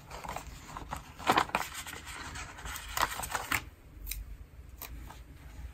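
Paper sticker sheet rustling as a planner sticker is peeled off its backing, in a few short papery crackles and scrapes.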